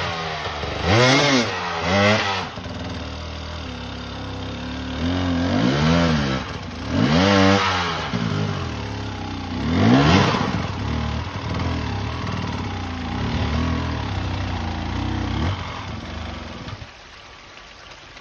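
Dirt bike engine blipped in repeated short revs, each rising and falling, between stretches of idle, as the bike climbs a rocky, wet creek bed under load. The engine sound drops away about a second before the end.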